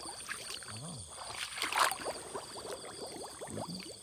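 Shallow pond water sloshing and splashing as hands reach in to pick out snails, with one louder splash about two seconds in.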